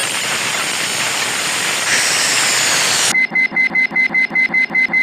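A steady hissing noise that cuts off about three seconds in, followed by rapid electronic beeping, about four beeps a second, like an alarm clock.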